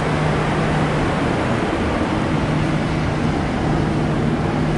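Strong wind blowing across the microphone, a steady rushing noise, with a steady low hum underneath.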